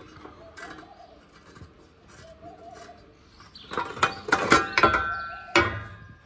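Sheet-metal shaft guard on a Shaktiman gearbox being pulled and worked loose by hand: from about halfway in, a quick run of sharp metal clanks and rattles with brief ringing, and a heavier knock near the end.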